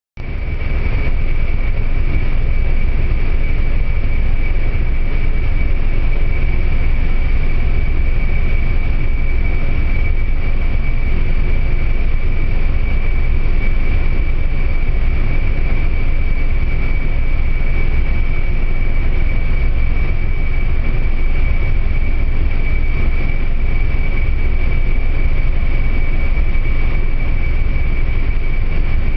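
Steady drone of an aircraft in flight: a heavy low rumble with one constant high-pitched whine over it, unchanging throughout.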